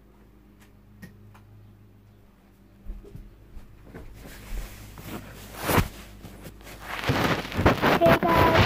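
Quiet room with a low steady hum, then scattered knocks and one loud thump about six seconds in. It ends in close rustling as the phone is handled over bedding.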